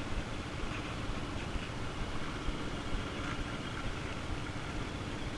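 Quad bike (ATV) engine idling steadily with a low, even hum.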